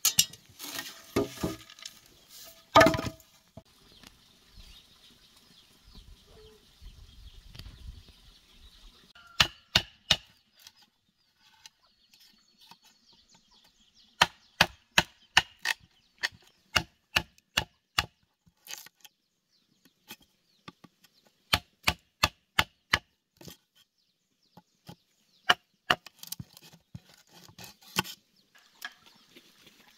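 Hammer blows on a chisel cutting a mortise hole into a green bamboo tube: sharp knocks in runs of several strikes, about two a second, with pauses between the runs.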